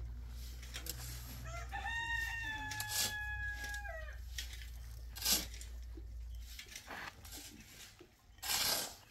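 A rooster crowing once: a single long call that rises, holds level for about two seconds, then drops off. A sharp knock comes about five seconds in, and there is a brief rush of noise near the end, over a low steady rumble.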